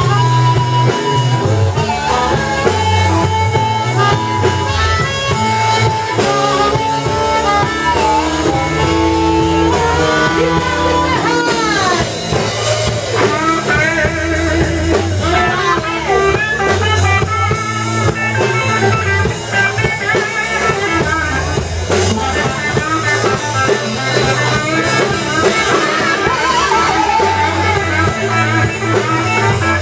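Live blues band playing: an electric guitar solo with bending notes over a drum kit and a steady low bass line.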